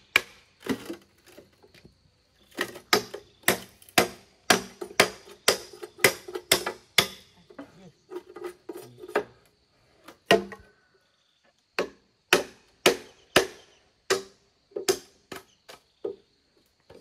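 A hand tool striking wood repeatedly, chopping in runs of about two strikes a second with short pauses, each blow followed by a short ring.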